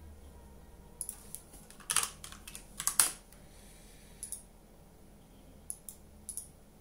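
Scattered clicks from a computer mouse and keyboard in use, several in a quick run about two to three seconds in, then single clicks spaced out, over a faint steady low hum.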